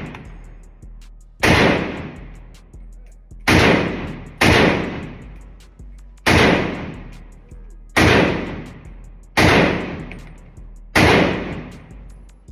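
Gunshots at a shooting range: seven single shots fired at an uneven pace, roughly one to two seconds apart, each followed by a long fading tail.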